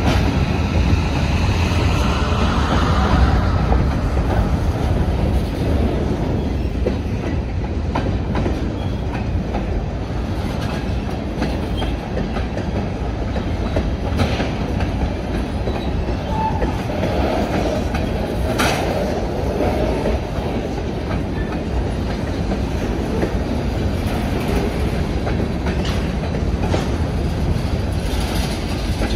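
Freight train's tank cars and covered hoppers rolling past at close range: a steady low rumble with the wheels clattering over the rail joints.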